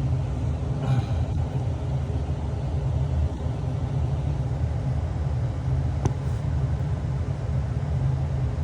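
Furnace running with a steady low rumble from its blower, the whole furnace a little shaky. There are a couple of faint clicks.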